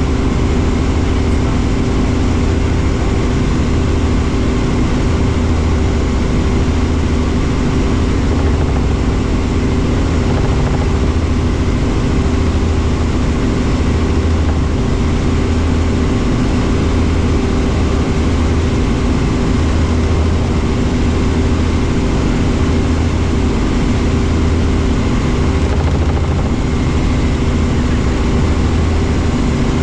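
Light helicopter in cruising flight heard from inside the cabin: a steady, loud drone of engine and rotors with a low hum that swells and fades every second or two.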